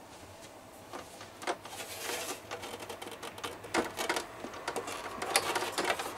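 Plastic dust cover of a Sony PS-LX150H turntable being lifted off by hand: an irregular run of light clicks, knocks and scrapes of plastic on plastic.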